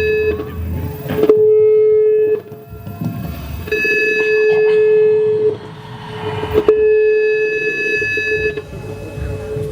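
Experimental noise music: a held, steady tone with high overtones switches on and off abruptly three times, over a low rumbling drone.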